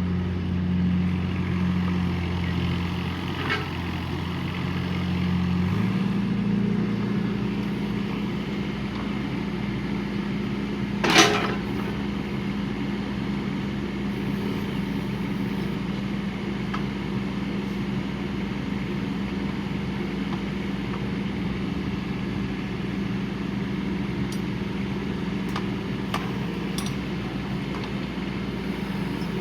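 Mini excavator's three-cylinder Yanmar diesel running steadily; a few seconds in the engine speed steps up and holds at a higher, even pitch. A single brief, sharp noise stands out about a third of the way through.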